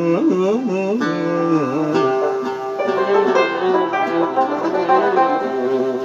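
Oud and a second plucked string instrument playing an instrumental passage of a traditional Arabic song. The melody slides and bends between notes for about the first two seconds, then settles into steadier plucked notes.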